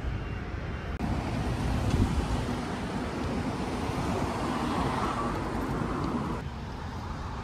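Steady vehicle noise, a rumble with hiss and no clear engine note, which jumps louder about a second in and eases off shortly before the end.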